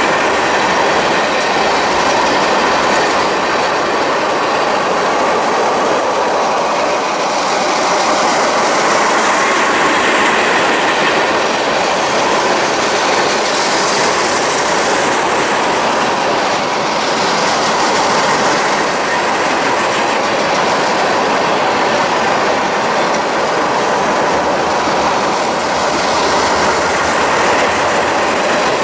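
Railroad cars rolling past on the rails: a steady rumble and clatter of wheels that does not let up.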